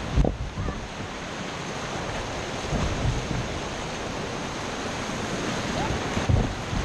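River water rushing and churning through a small rapid around a tandem kayak, a steady rush with wind buffeting the microphone. A couple of short low thumps come just after the start and again near the end.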